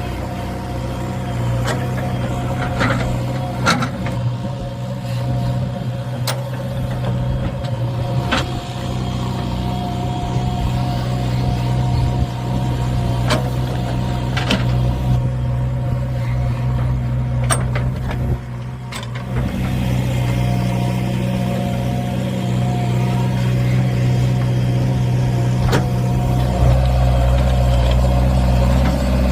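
JCB 3DX backhoe loader's diesel engine running steadily, with sharp knocks every few seconds. The engine gets louder and deeper near the end.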